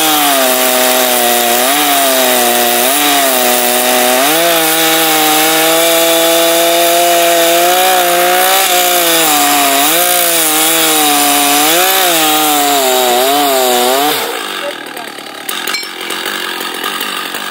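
Stihl MS 880 two-stroke chainsaw at full throttle cutting through a large oak log, its engine note dipping and recovering again and again as the chain loads up in the wood. About fourteen seconds in the engine sound drops away abruptly as the cut ends.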